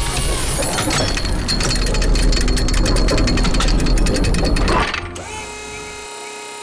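Heavy-machinery sound effect: a loud, rapid hammering rattle over a deep rumble, like a jackhammer or hydraulic breaker, that cuts off suddenly about five seconds in, leaving soft background music.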